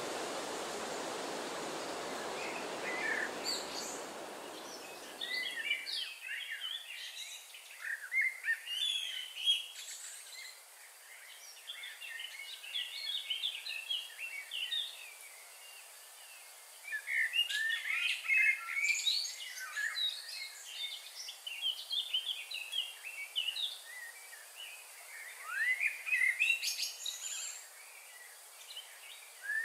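Songbirds chirping and trilling in dense, overlapping bursts, heaviest in three spells. A steady rushing noise at the start fades out about five seconds in.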